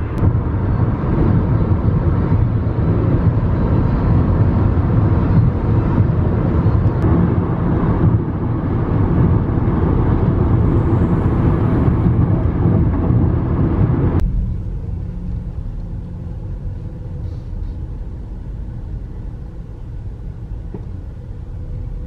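Road and wind noise heard inside a car driving at highway speed. About fourteen seconds in it cuts abruptly to a quieter, low rumble of the car driving slowly.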